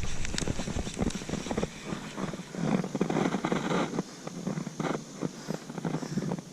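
Irregular clicking, scraping and crackling from a fishing reel being wound and the rod and line being handled as a hooked bass is brought in, busiest about three seconds in.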